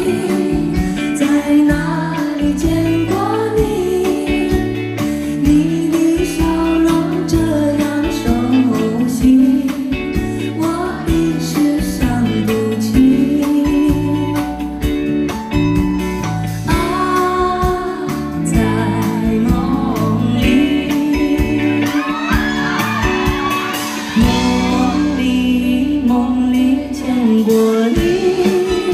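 Male singer performing a Chinese pop ballad live into a handheld microphone, over a band accompaniment with a steady bass line, heard through the concert PA.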